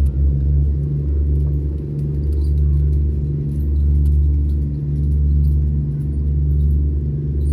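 A loud, steady low mechanical rumble and hum, swelling and easing every second or two.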